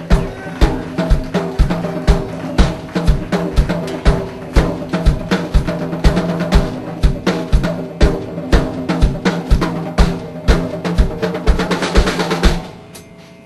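Live rock band opening a song: drums with a steady bass-drum beat about two a second and busy snare and cymbal hits, over held low notes from the band. It drops away about a second before the end.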